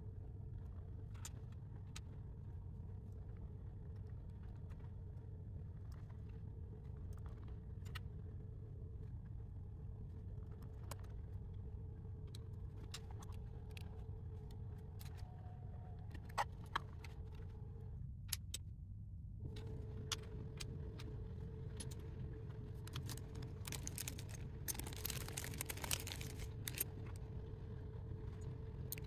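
Small plastic 3D jigsaw puzzle pieces clicking now and then as they are handled and pressed together, with a busier stretch of clicking and rustling near the end, over a steady low hum.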